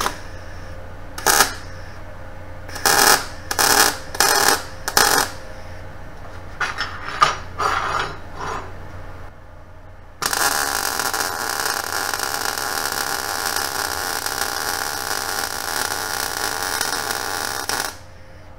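MIG 250 welder's arc on thin steel exhaust pipe at a low setting of about 17 volts and low wire feed speed. It first strikes in several short sizzling bursts, then runs steadily for about eight seconds as a bead is laid, and cuts off near the end. The heat is about right: the bead does not burn through the pipe.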